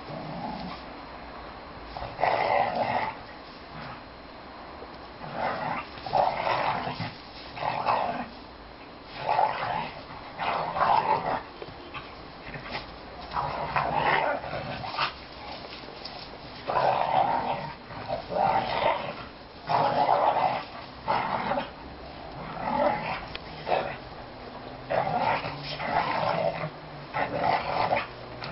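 Two dogs play-fighting, growling and snarling at each other in repeated short bursts.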